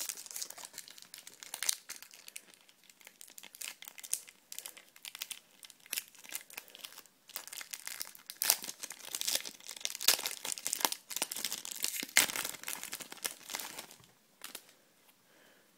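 Shiny foil wrapper of a Topps Match Attax trading-card booster pack crinkling and tearing as it is pulled open by hand, in irregular crackles that are densest about two-thirds of the way through and die away near the end.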